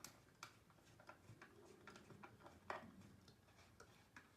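Faint, irregular small clicks and ticks of a hand screwdriver driving a screw into an engineered-wood panel, with one slightly louder click a little under three seconds in.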